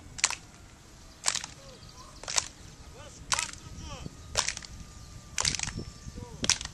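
Sharp hand claps in a steady beat, about one a second, as players keep time during a group warm-up drill.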